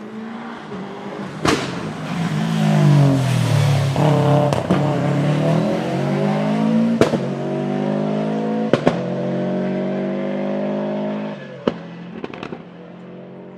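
Rally car engine at high revs: its pitch dips about three seconds in, then climbs steadily for several seconds before falling away near the end. Several sharp cracks sound along the way.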